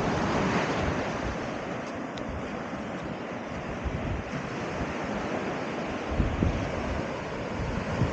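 Sea waves washing on the shore in a steady rush, with wind gusting on the microphone.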